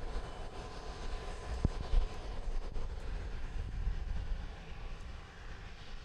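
Aircraft jet engines running at the airport, a steady low rumble with a faint steady whine and two brief thumps about two seconds in.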